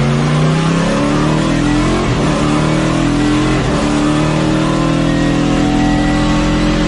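Race car engine sound effect: the engine runs continuously at high revs, its pitch holding steady and creeping slightly upward.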